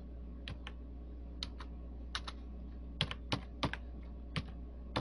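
Computer keyboard typing: slow, irregular keystrokes, often in pairs, as a book title is typed into a search box, over a steady low hum.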